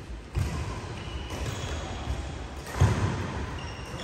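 Badminton rally: rackets striking the shuttlecock and players' feet thudding on the court mat, echoing in the hall. The loudest hit comes about three seconds in.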